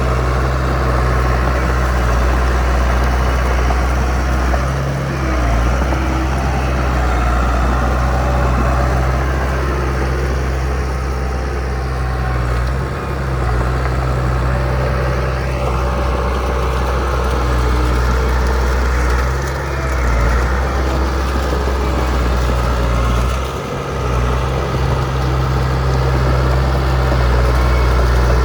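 Heavy diesel engine of earth-moving machinery running steadily with a low drone, dipping briefly a few times.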